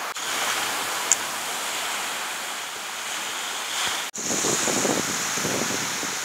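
Wind blowing across the microphone; after a cut about four seconds in, small waves washing up on a sandy beach, with the wind still on the microphone.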